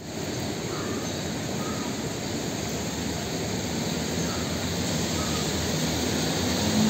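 Steady outdoor roar of noise, slowly growing louder, with crows cawing faintly a few times.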